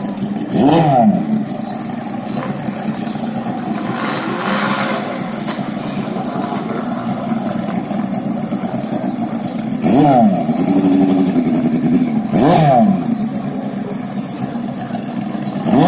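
Drag-racing motorcycle and snowmobile engines idling at the start line, revved in short blips that rise and fall in pitch: once about a second in, again around ten seconds in, and again around twelve and a half seconds in.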